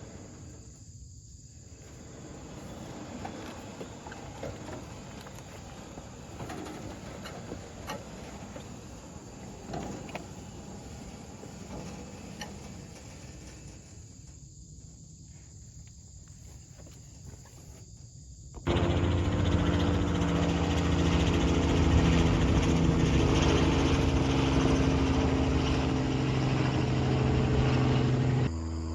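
Quiet outdoor background with scattered light clicks and knocks. About two-thirds of the way in, an engine starts running at a steady speed, much louder, and it drops away just before the end.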